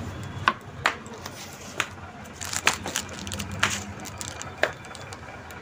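Handling noise: a handful of sharp clicks and light knocks at uneven intervals, as boxes and packets are picked up and moved about, over a faint low hum.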